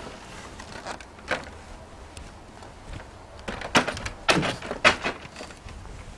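A ladder being moved and set in place: scattered knocks and clatter, loudest in a cluster of three or four sharp knocks between about three and a half and five seconds in.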